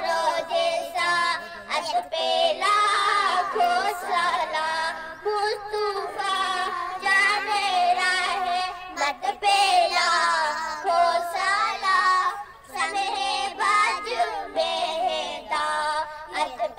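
A small group of young girls singing a salam, a devotional Islamic song in praise of the Prophet, together and unaccompanied, in long drawn-out melodic lines with brief breath pauses.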